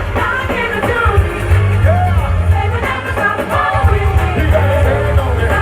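Live gospel music: a singer holds and bends long notes over a heavy, steady bass.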